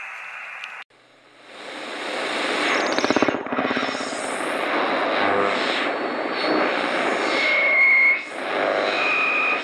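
Animated intro sound effect: after a sudden cut, a broad rushing roar swells up and runs on, with sweeping whooshes through it. Near the end come two brief steady whistle tones.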